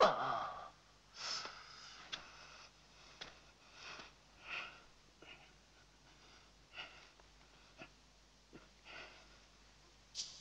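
Heavy breathing of exhausted, hurt fighters: a loud pained gasp at the start, then short puffs of breath and sniffs through the nose, roughly one a second.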